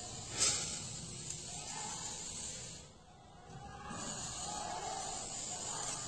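A woman crying: a sharp sniff about half a second in, then soft sobbing breaths against a cloth held to her face, over a steady hiss.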